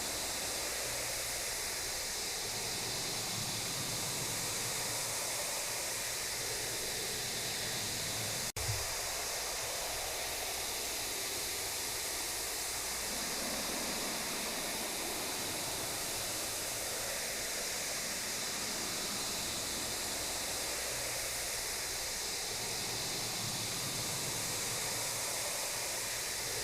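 Steady hiss of background static, with a brief dropout and a small click about eight and a half seconds in.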